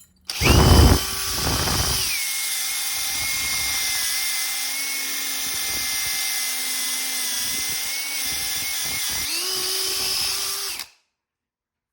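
Power drill spinning a crimped wire tube brush inside a 2-inch copper pipe fitting, scrubbing the fitting's inner wall. The motor whine drops in pitch under the load about two seconds in, rises again near the end as the brush frees up, then stops.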